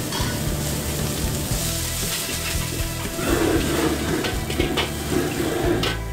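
Noodles sizzling in a hot wok over a high-flame wok burner, with a metal ladle knocking and scraping against the wok as it tosses them. About three seconds in, the flames flare up over the wok and the sound fills out for a few seconds.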